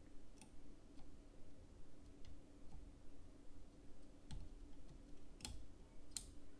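Faint, irregular light clicks and taps of a soldering iron tip and small tools against a USB flash drive's circuit board during microsoldering, about six in all, the loudest two near the end, over a low steady hum.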